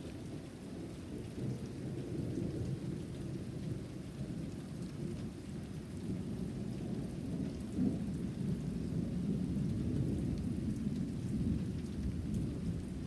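Rain falling with a continuous low rumble of thunder or wind, growing a little louder in the second half.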